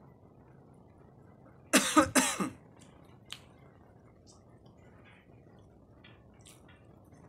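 A man coughing, a quick run of two or three harsh coughs about two seconds in. A few faint clicks follow.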